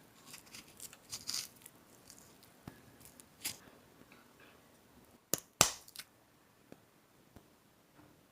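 Household handling noises: a scatter of light clicks, taps and crinkling, with one sharper, louder click a little past five seconds in.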